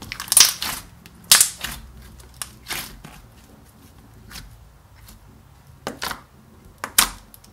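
Hands squishing and pressing thick, glossy blue slime, making a series of sharp, wet pops and clicks at irregular intervals, the loudest about a third of a second in, just after one second, near three seconds, and twice near the end.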